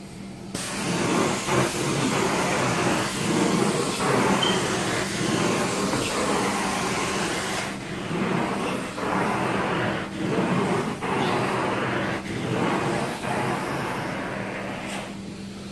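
Carpet-cleaning extraction wand pulling rinse water out of the carpet: a steady rush and hiss of vacuum suction over a low machine hum, swelling and dipping with each stroke about once a second.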